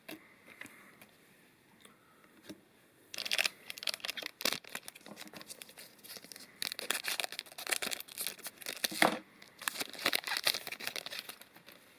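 Foil wrapper of a Magic: The Gathering Kaldheim Set Booster pack being torn open and crinkled in the hands. The first few seconds are quiet, then the crackling runs for about eight seconds.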